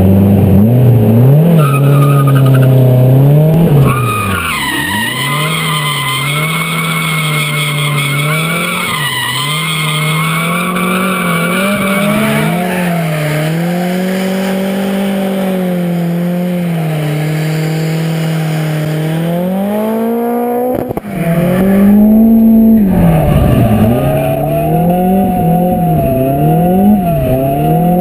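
Drift car engine held high in the revs, with the pitch repeatedly dipping and climbing as the throttle is worked. The tyres squeal loudly in a long slide in the first half. The sound drops out for a moment about two-thirds of the way through, then comes back louder with more hard revving.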